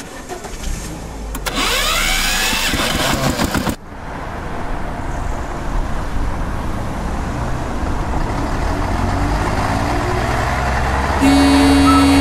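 Motor vehicle engine sound running and building, with a loud steady blaring tone, like a horn, starting about eleven seconds in.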